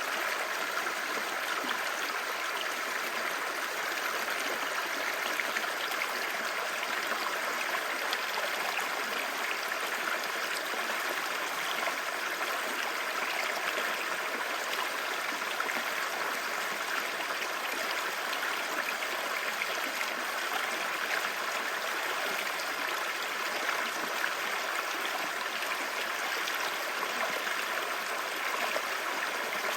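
Clear river babbling steadily, an even, unbroken rush of running water.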